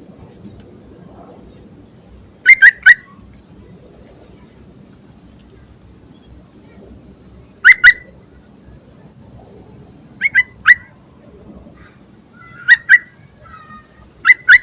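Yellow-vented bulbul (trucuk) calling: five short phrases of two or three quick, loud chirping notes, a few seconds apart.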